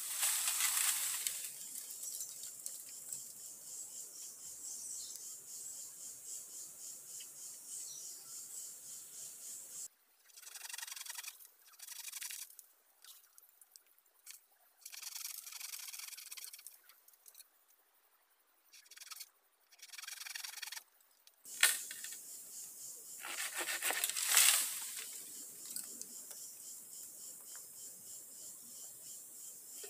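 Bamboo poles rubbing, scraping and rustling as they are handled and pulled through dry leaf litter, over a steady pulsing insect chorus. There are two louder rustling swells, one at the start and one a little past two-thirds of the way through, and a single sharp knock just before the second.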